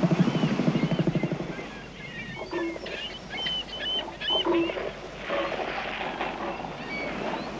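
Bull northern elephant seal sounding its threat call: a rapid train of loud, low pulses resonated through its enlarged nose, lasting about a second and a half. Quieter, scattered animal calls and short high chirps follow.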